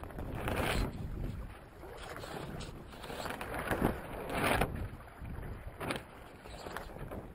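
Wind and sea water rushing past a small sailboat under sail, rising and falling in several surges, the strongest about four seconds in.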